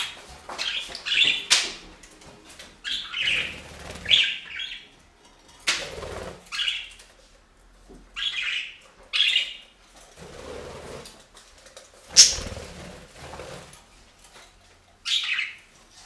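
Budgerigars chirping in short bursts and fluttering their wings, with the loudest sound a single sharp flurry about twelve seconds in.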